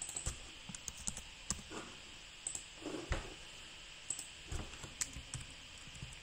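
Scattered clicks and taps of a computer keyboard and mouse as a chart setting is typed in and applied, with a louder knock about three seconds in.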